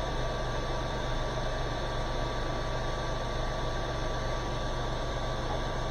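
Steady whirring fan noise with a low hum and a thin, constant high whine.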